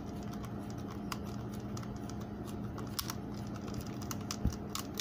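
Small irregular clicks and ticks of a screwdriver working the screw terminal on a plastic time relay, as a wire is fastened, with a duller knock about four and a half seconds in, over a steady low hum.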